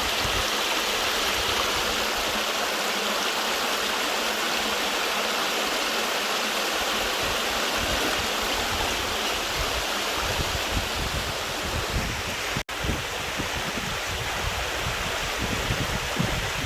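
Creek water rushing steadily down a small waterfall over rocks. The sound breaks off for an instant about two-thirds of the way through.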